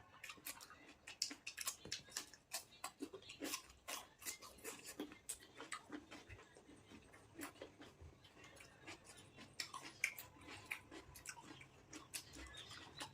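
A person chewing fruit close to the microphone: quiet, irregular wet clicks and small crunches of mouthfuls being chewed.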